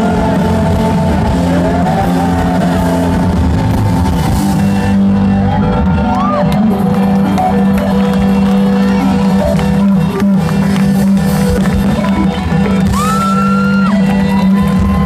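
Rock band playing live through a concert PA, with electric guitars, bass and drums, heard from within the audience.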